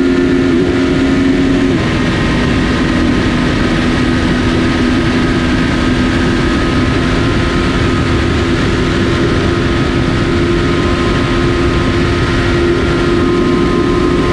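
Kawasaki ZX-14R's 1441 cc inline-four running at a steady engine speed while riding, its even engine note under a loud rush of wind noise; the note shifts slightly about two seconds in.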